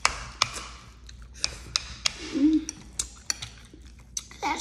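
Metal fork clinking and scraping against a ceramic bowl of scrambled eggs, with close-up chewing and mouth clicks between the clinks. A brief low hummed 'mm' comes about two seconds in.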